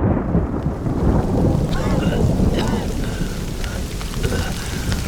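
Heavy rain with a deep, continuous thunder rumble: a dense, steady downpour sound that starts abruptly just before and holds throughout.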